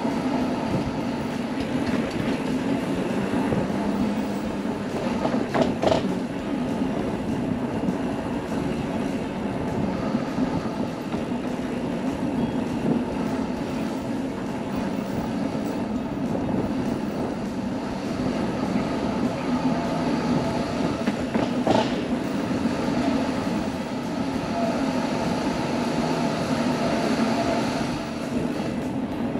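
Bicycle rolling fast downhill on pavement: a steady tyre hum, with two sharp knocks, about six seconds in and again about twenty-two seconds in.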